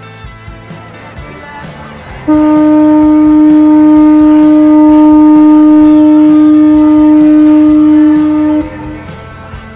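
A ship's horn gives one long, steady blast of about six seconds, starting about two seconds in and stopping suddenly, over background music.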